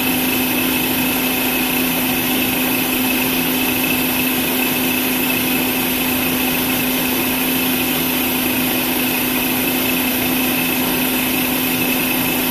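Nutri Ninja Auto IQ 1000-watt blender running steadily at full speed with an even hum, blending a smoothie of milk and frozen berries in the last seconds of its automatic Ultra Blend program.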